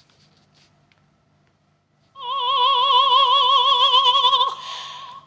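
Near silence with a few faint clicks, then about two seconds in a single high sung note held for about two seconds with a wide, even vibrato, thinning into a breathy tail near the end.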